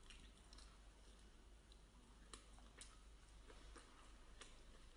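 Near silence with a few faint, scattered clicks of eating, three of them a little sharper than the rest.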